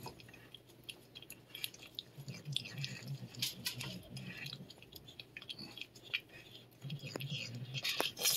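Cat licking and chewing a lickable paste treat squeezed from a tube: a run of small, quiet mouth clicks and smacks.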